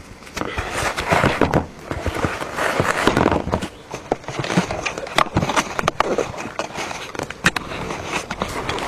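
Wind buffeting the camera microphone at the open door of a jump aircraft in flight, with irregular crackles and knocks of the camera rubbing and being handled.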